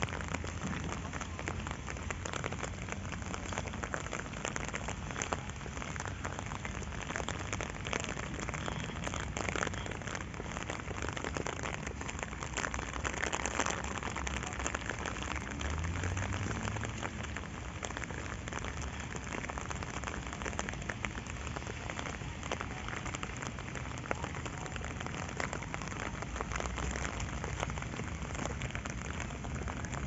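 Steady rain falling on the ground and on the pond, with many separate drop hits heard close by.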